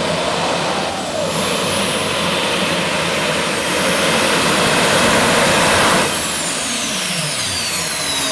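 Modified pulling tractor's engines at full power under the load of the sled, growing louder until about six seconds in, then dropping sharply as the power comes off, with the engine whine falling in pitch.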